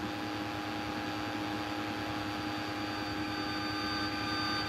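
Steady drone of a light aircraft's engine and cabin noise heard from inside the cockpit, with several steady hums in it and no change.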